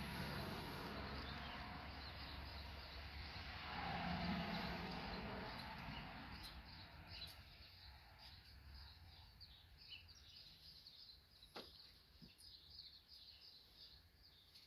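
Small birds chirping in quick, repeated short calls over a low rumbling noise that swells about four seconds in and fades away by the middle; a few sharp clicks near the end.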